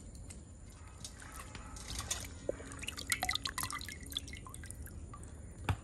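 Water dripping and splashing into a stainless steel bowl as wet bitter gourds are lifted out of the wash water, with many small irregular drips. A single louder knock near the end.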